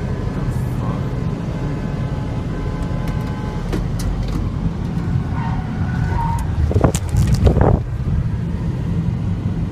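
Steady low rumble of engine and road noise from inside a moving car's cabin, with a couple of louder bursts about seven seconds in.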